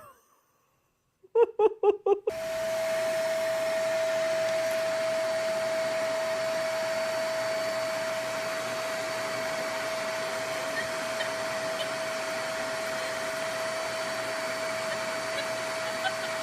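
A household electric blower appliance switches on and runs steadily: a loud, even rushing hiss with a constant whine held at one pitch. Just before it starts there is a quick run of about five short pitched notes.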